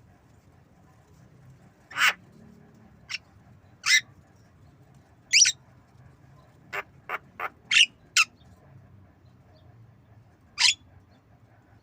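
Javan myna giving short, sharp calls, about ten in all, with a quick run of five near the middle.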